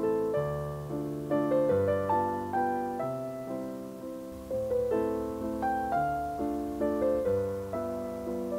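Piano background music: a melody of struck notes over chords, each note fading after it is played.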